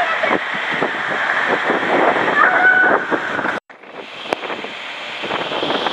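Water rushing and splashing around riders sliding down an enclosed water slide tube, a dense hiss full of crackles. About halfway through it cuts out suddenly, then the rushing comes back quieter and builds again.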